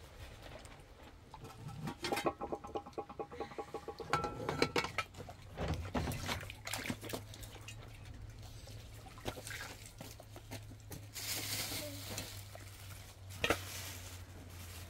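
Metal dishes and utensils clinking and scraping in quick ringing strokes for a few seconds, then scattered knocks, a brief hiss and one sharp knock near the end, over a low steady hum.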